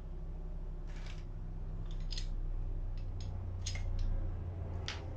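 A few short clicks and light scrapes of small chainsaw parts being handled and fitted while the oiler is put back into the housing, over a steady low hum.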